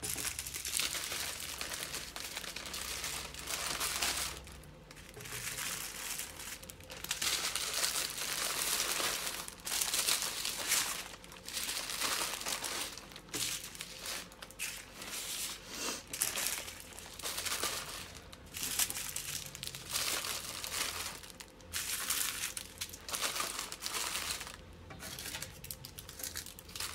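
Small plastic bags of diamond painting drills crinkling and rustling as they are handled and packed into a larger Ziploc bag, in irregular bursts with short pauses.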